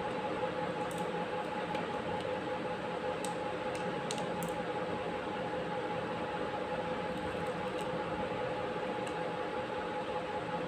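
Steady machine hum with two held tones over an even hiss, plus a few faint light clicks a few seconds in.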